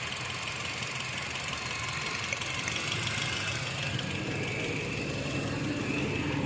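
Toyota Corolla four-cylinder petrol engine idling with a misfire, running unevenly; the scanner shows code P0354, a fault in the number 4 ignition coil circuit, which the mechanic takes for a wiring problem.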